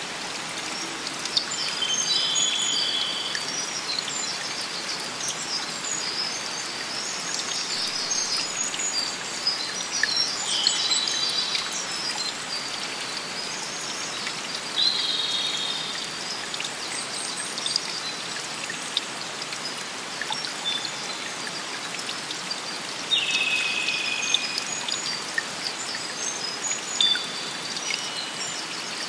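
Steady rush of running water from a forest stream, with small birds chirping and twittering over it and a few held high notes about a second long now and then.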